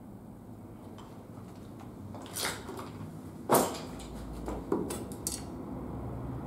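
About five sharp knocks and clatters of hard objects, the loudest about three and a half seconds in, over a low steady rumble.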